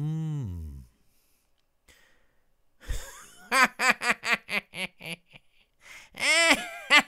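A voice laughing: a short sigh-like sound at the start, then quick high-pitched bursts of giggling, about five a second, from about three and a half seconds in.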